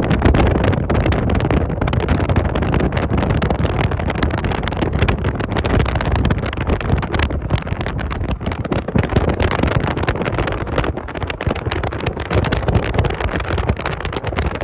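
Heavy wind buffeting the microphone over a low, steady rumble of a car driving on the road, as from a phone held at an open car window.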